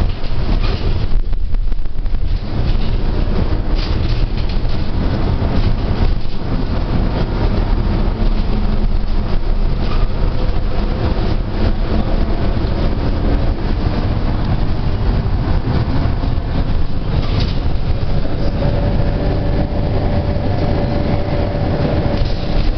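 Steady rumble of road and wind noise from a moving road vehicle, heard from inside it, with a faint engine hum that becomes clearer in the last few seconds.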